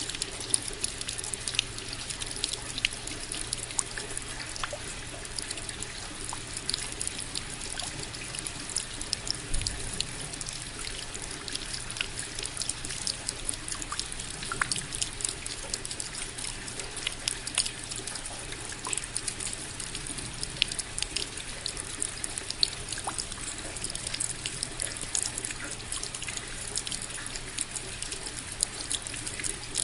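Steady rain falling, with many separate drops striking close by as sharp little ticks over a constant hiss.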